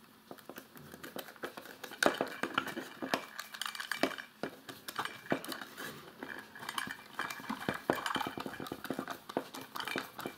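Small 3x12 screws hand-driven with a bit screwdriver into a 3D-printed plastic housing: irregular metallic clicks and ticks of the bit and screw with scraping as the screws turn, busier from about two seconds in.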